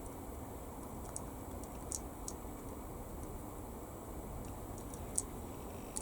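A few faint, sharp clicks of small plastic model-kit parts being handled and fitted together, the loudest past the five-second mark, over a low steady background hum.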